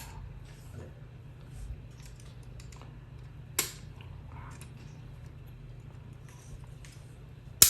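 Light plastic clicks and taps of a microwave's door interlock microswitch and its plastic latch housing being handled and pried at, with one sharp click about three and a half seconds in and a louder snap near the end.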